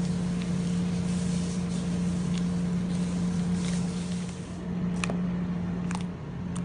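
Soft squishing and crackling of fluffy slime being kneaded by hand in a plastic tub, over a steady low hum. Two sharp clicks come about five and six seconds in.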